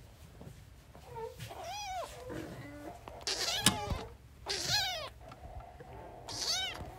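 Young kittens mewing during rough play, about four short calls that rise and fall in pitch, with a sharp tap about halfway through.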